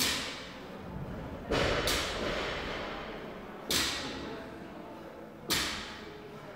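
Loaded barbell with bumper plates dropped on a rubber gym floor: heavy thuds about every two seconds, each ringing on briefly, the second with a quick rebound bounce.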